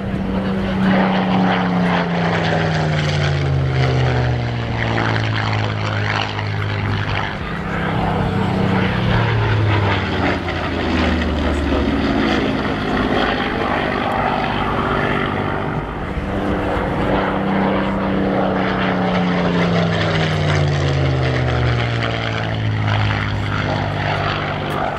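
Supermarine Spitfire's V12 piston engine flying past twice, its note falling in pitch as it goes by each time.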